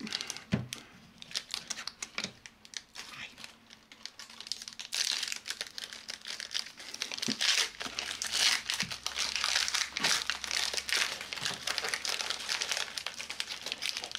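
Foil trading-card pack wrapper being handled and crinkled: a few light clicks and rustles at first, then dense, continuous crinkling from about five seconds in.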